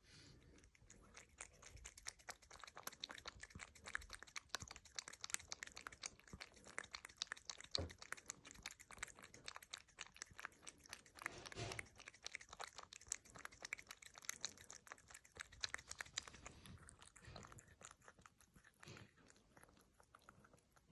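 A ginger cat lapping up a creamy white food from a saucer: faint, rapid wet tongue clicks that thin out near the end as it licks its lips.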